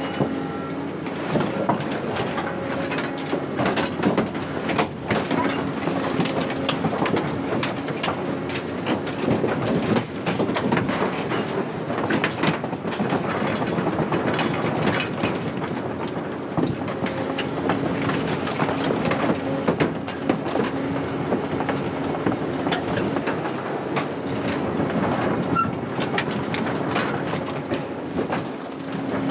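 Excavator's diesel engine running under load, with a hydraulic whine that comes and goes as the bucket presses down. The bucket crushes corrugated galvanized steel sheeting, which clanks, creaks and crumples throughout.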